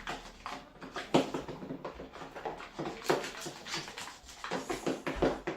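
Glue and shaving foam slime mixture being stirred in a bowl, giving irregular clicks and scrapes, the loudest about a second in and again about three seconds in.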